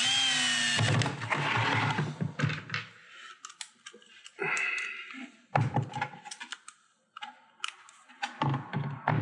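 A cordless screw gun runs briefly with a steady whine, driving a screw to hold the backing plate down. After that come scattered sharp clicks and knocks as screws are set by hand and the driver is fitted to them.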